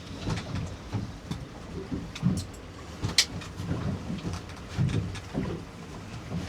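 Wind buffeting the microphone on a small fishing boat in a choppy sea, heard as irregular low rumbling, with water slapping the hull and a few sharp clicks, the loudest about three seconds in.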